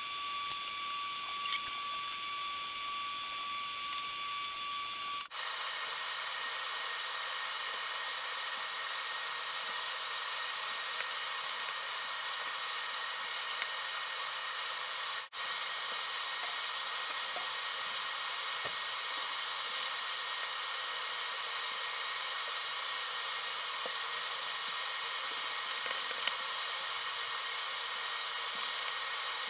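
A steady hiss, mostly high-pitched with a few faint steady tones in it. It breaks off for an instant twice, about five seconds in and again about fifteen seconds in, changing a little in character after the first break.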